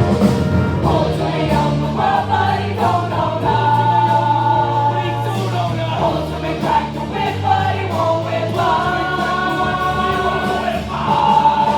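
Song with a group of voices singing together over instrumental backing, with long held notes over a steady bass line.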